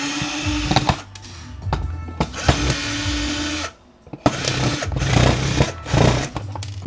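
A small power drill's motor runs in two short spells, each about a second long, as the casing of a drill charger is worked open; after that comes irregular clattering and handling noise.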